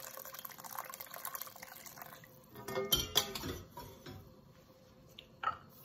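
Chicken broth being poured from a kettle into a pot, a steady splashing pour that stops about two seconds in. A few knocks follow as the kettle is set down on the stovetop, and one more light knock near the end.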